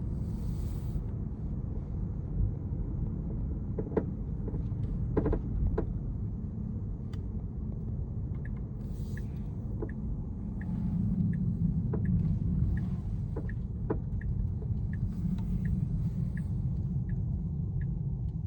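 Tesla Model 3 heard from inside the cabin while driving: steady low road rumble with irregular sharp knocks and rattles, the unexplained knocking/rattling noise the car is making. In the second half a light, regular tick comes about every two-thirds of a second.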